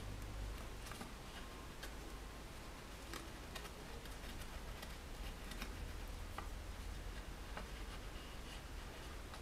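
Faint, irregular small ticks and clicks from fingers and reverse-action tweezers handling fine rigging thread, over a low steady hum.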